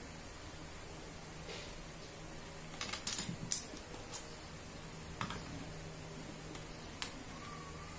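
Hard plastic clicks and clatter from a National 12V cordless drill and its battery pack being handled: a quick cluster of sharp knocks about three seconds in, then single clicks now and then.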